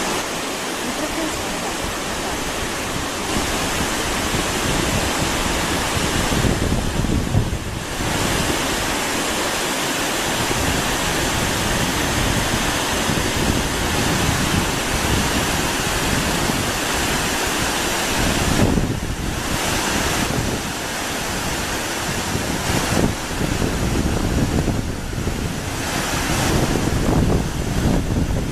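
Waterfall rushing steadily, with gusts of wind buffeting the microphone now and then.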